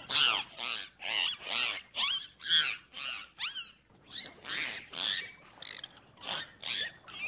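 Dolphins calling: a rapid run of squeaky whistles with sliding pitch, about two a second, cutting off abruptly at the end.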